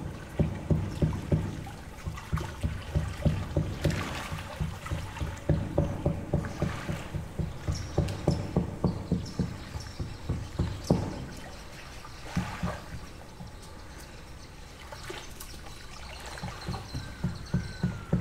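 Small lake waves lapping against the shore: a quick, uneven run of soft low slaps and splashes. They ease off for a few seconds past the middle and pick up again near the end.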